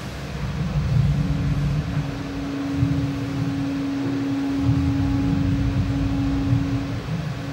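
Low, wavering rumbling drone with a single steady held tone that comes in about a second in and stops just before the end: an ambient soundscape from the performance's score.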